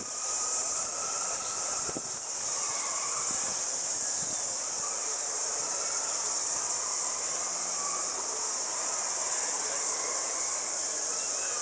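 Steady, high-pitched insect drone that holds without a break, over a faint murmur of distant voices.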